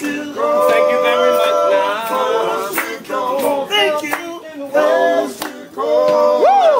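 Group of men singing gospel a cappella in harmony, with scattered hand claps. A long chord is held about half a second in, and one voice swoops up and back down near the end.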